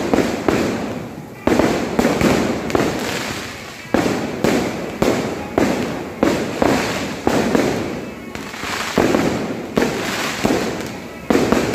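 Kambakattu temple fireworks going off non-stop: a steady run of loud bangs, about two a second, each trailing off in a rumble and crackle before the next.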